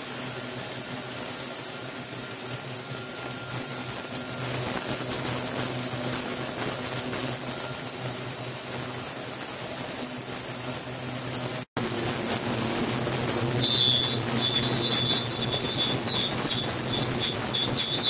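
Water churning in a cleaning tank fed by a degassed fine-bubble liquid circulation device, a steady low hum with hissing water. It breaks off for an instant about two-thirds of the way through, after which faint high-pitched tones pulse in and out.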